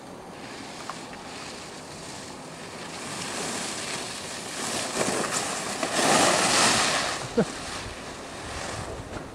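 Skis sliding and scraping over packed snow: a hiss that grows as the skier comes close and is loudest about six to seven seconds in, with a short sharp sound just after as he slows to a stop.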